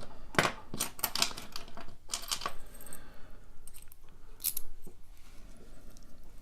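Small metal parts of a Schlage lock core, its pin-tumbler springs and pins, clicking and jingling as they are handled and shaken out, in a quick run of clicks over the first couple of seconds and a short burst again about halfway through.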